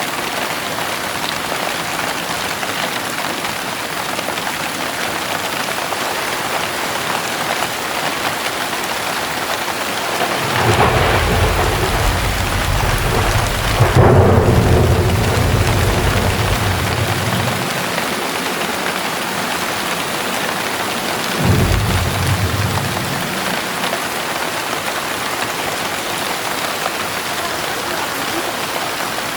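Heavy rain pouring steadily, with a long roll of thunder starting about ten seconds in that swells and dies away over some seven seconds, and a second, shorter thunderclap about twenty-one seconds in.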